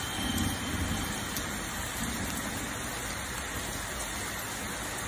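Heavy rain pouring steadily onto a paved driveway: a dense, even hiss.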